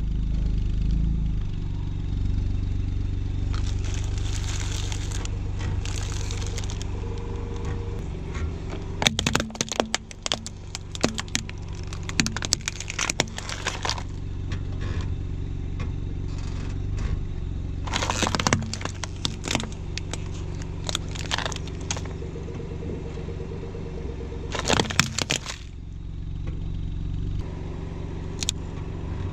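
A car's engine running low and steady while its tyre slowly rolls over objects and crushes them, with clusters of sharp cracking and crunching, the brittle plastic of a toy car breaking among them, about nine to fourteen seconds in, again around eighteen to twenty seconds and twenty-five seconds in.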